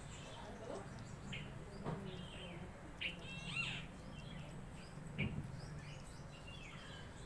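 Birds chirping: short, separate calls and brief gliding notes scattered through, over a low steady hum.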